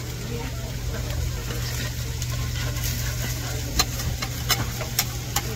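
Food-stall background with a steady low hum and, from about two-thirds of the way through, a run of sharp clicks and clacks.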